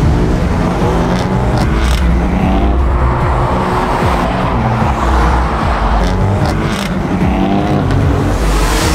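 Car engine revving hard, its pitch climbing and dropping back several times as it goes up through the gears, with a few sharp cracks.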